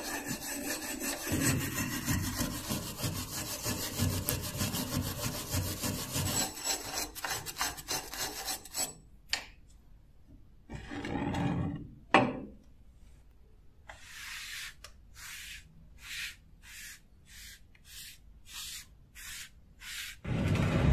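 Small wire brush scrubbed rapidly back and forth over the rusty steel tang of an old knife: a dense, continuous scratching. After a short pause, slower separate rubbing strokes come at about two a second.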